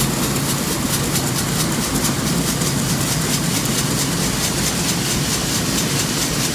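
Heavy machinery running steadily and loudly, with a low engine hum and a fast, even clatter over it.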